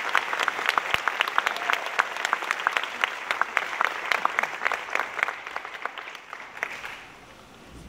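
Audience applauding, with some single claps standing out close by; the applause dies away near the end.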